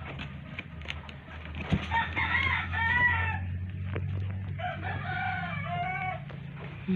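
A rooster crowing twice, about two seconds in and again about five seconds in, each crow a run of rising-and-falling notes, over a steady low hum.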